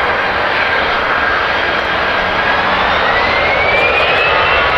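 Jet airliner engines running loud, with a high whine that rises in pitch from about halfway through.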